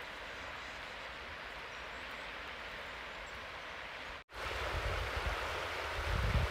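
Steady outdoor hiss, then after a cut about four seconds in, the louder rush of a shallow river running over riffles, with wind gusting on the microphone.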